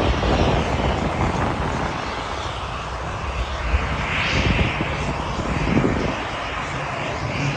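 Continuous jet engine rumble of a Boeing 777-300ER's GE90-115B engines on take-off, with wind buffeting the microphone.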